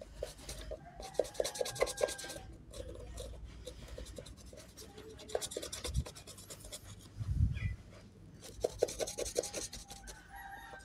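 A small toothbrush scrubbing the insole and inner lining of a canvas slip-on shoe with soapy water, in runs of quick back-and-forth strokes with short pauses between them. A dull knock partway through.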